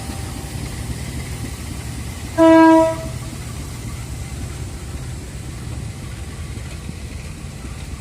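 Locomotive air horn of a Babaranjang coal train giving one short blast of about half a second, over a steady low rumble.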